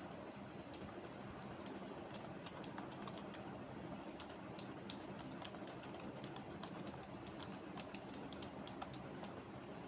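Computer keyboard being typed on: irregular runs of quick key clicks over a steady low background hum.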